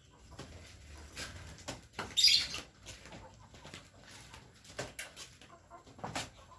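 Kampung chickens clucking and moving about, with a short loud rustling burst about two seconds in.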